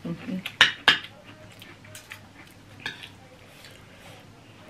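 Eating at the table: a metal spoon and fork clink against a ceramic bowl, twice sharply just under a second in and once more near three seconds, with quieter small eating noises between.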